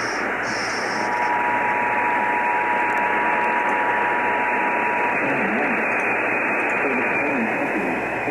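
Heavy radio static from a weakly received emergency weather broadcast. A steady tone near 1 kHz sounds from about a second in until about five seconds in. A faint wavering sound lies under the static near the end.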